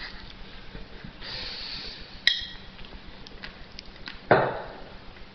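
A single sharp clink on a glass jar of Nutella, ringing briefly, about two seconds in, with faint knocks as a hand works in the jar. About four seconds in comes a louder, short rush of noise that fades quickly.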